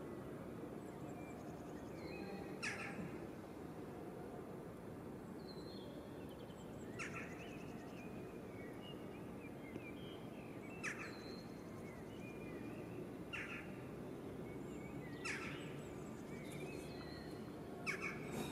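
Outdoor ambience with birds calling: six short, sharp calls a few seconds apart and some faint whistles over a steady background hiss.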